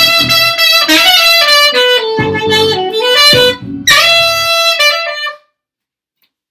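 Saxophone playing a slow melody: a phrase that steps down and climbs back up, then one long held note that stops about five seconds in.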